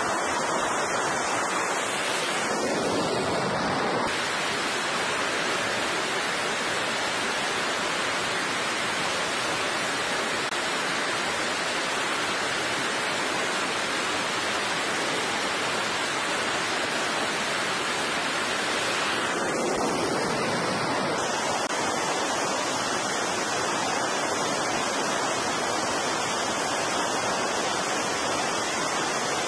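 Steady rushing noise of jet engines running on an aircraft carrier's flight deck, with wind. The high hiss shifts briefly twice.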